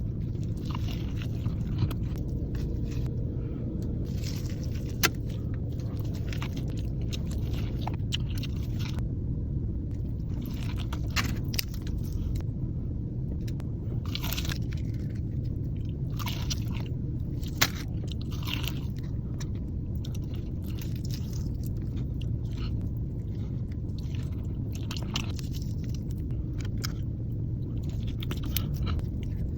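Close-up crunching bites and chewing of crispy fried food, in irregular crisp crunches. Underneath runs a steady low rumble of a car idling, heard from inside the cabin.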